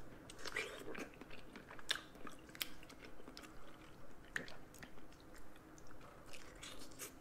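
Close-miked eating sounds of a person eating a seafood boil: chewing and biting, with irregular soft clicks and crunches.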